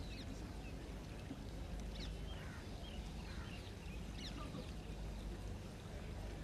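Outdoor ambience: a steady low rumble with birds calling in short chirps, one every half second to a second.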